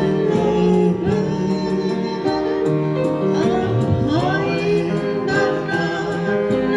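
A voice singing a cover song over electronic keyboard accompaniment, with held notes and a light, steady beat.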